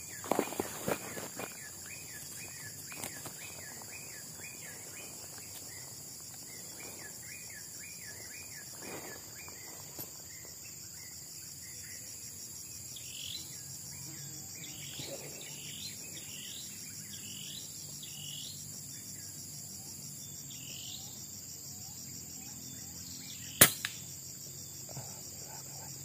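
A scoped air rifle fires a single sharp shot near the end. Before it there is rustling in the grass, a steady insect drone, and forest birds calling: quick repeated chirps early on, then a run of falling whistles.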